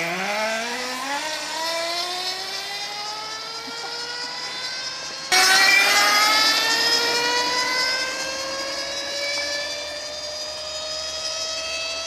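A 12 V car starter motor over-volted on 24 V, driving a bicycle, whining and rising steadily in pitch as the bike accelerates from a standstill. The whine jumps suddenly in loudness about five seconds in, then keeps climbing more slowly.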